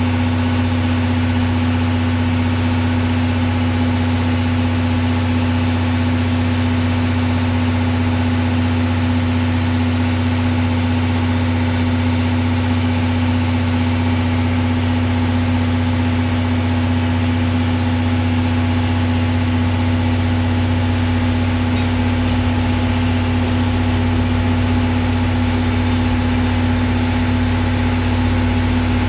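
DE10 diesel-hydraulic locomotive's engine running at low power as the locomotive moves slowly, a steady deep drone. The lowest rumble grows stronger about two-thirds of the way through as the locomotive comes closer.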